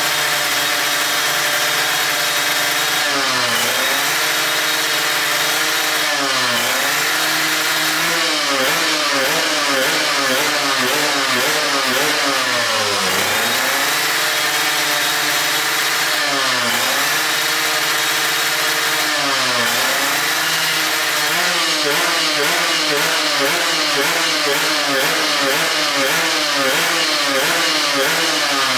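Kawasaki Ninja FFA drag bike's two-stroke single-cylinder engine free-revving on the stand. The pitch repeatedly drops and climbs back every few seconds as the throttle is closed and reopened, with quicker blips from about twenty seconds in.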